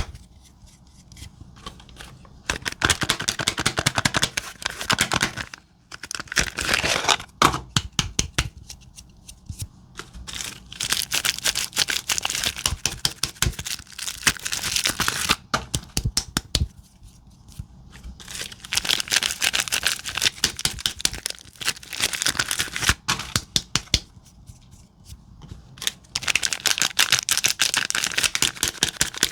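Soap wrappers being torn open and crinkled by hand: about five bursts of rustling and crackling, each a few seconds long, with quieter pauses between them.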